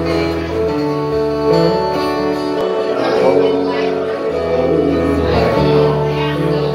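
Live music: acoustic guitar being played, with a man singing into a microphone.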